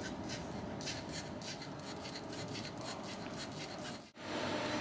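Ball-balancing robot (ballbot) running: its motors and friction drive wheels make a faint rubbing, scratchy sound with irregular quick ticks as they keep correcting the ball to hold the robot upright. It stops abruptly about four seconds in.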